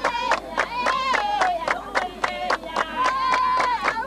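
Group of women singing in high voices over steady rhythmic hand clapping, about three or four claps a second.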